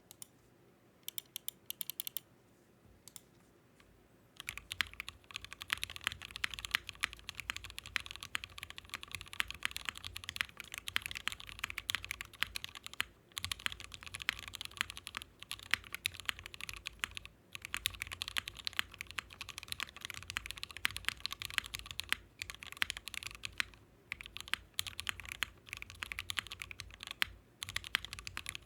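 Typing on a Bakeneko mechanical keyboard with Gateron Ink switches (lubed, filmed) and 8008 keycaps. There are a few isolated keystrokes in the first two seconds, then steady fast typing from about four seconds in, with a few brief pauses. The later typing is on the FR4 half-plate, flex-cut-PCB build, which the builder found very hollow-sounding.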